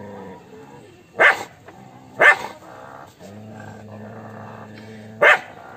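A dog barking: three sharp single barks, two about a second apart and a third some three seconds later, with a low steady drone between the last two.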